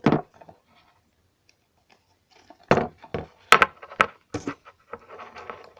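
Handling of an old plastic toilet-tank float valve and its metal lever: a quiet pause, then a run of sharp clicks and knocks about halfway in, followed by faint rubbing.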